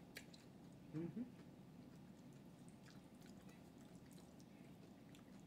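Faint close-up eating sounds: soft wet mouth clicks of chewing, with one short vocal sound about a second in.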